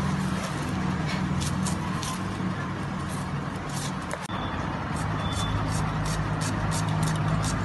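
Onion being sliced by hand against a bonti blade: short crisp cutting strokes about three a second, quickening in the second half. A steady low mechanical hum runs underneath.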